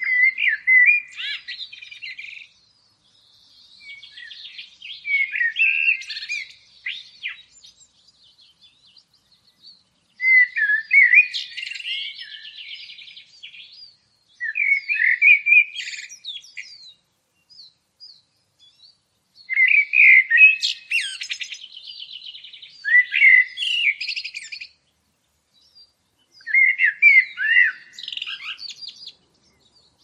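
A songbird singing: about seven varied, twittering phrases of two to three seconds each, separated by short pauses.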